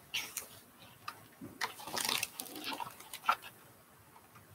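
Paper rustling and soft clicks as the pages of a picture book are handled and turned, with a longer rustle about two seconds in.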